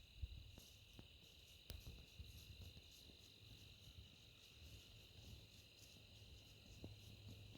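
Faint, steady chorus of crickets trilling in a high band, with a single sharp tick a little under two seconds in.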